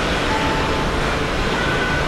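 Airbus A330-300's Rolls-Royce Trent 700 jet engines at takeoff thrust as the airliner rotates and lifts off. The noise is loud and steady, with faint whining tones above it.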